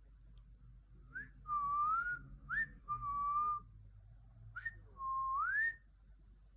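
A series of clear whistled notes in three phrases. Each starts with a short upward flick and goes on to a held note. The first held note wavers, the second is steady, and the last starts low and rises at its end.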